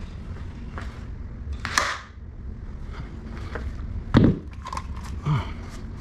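Scattered clicks and knocks over a steady low rumble, with a short scraping burst about two seconds in and two loud dull thumps a little after four and five seconds in.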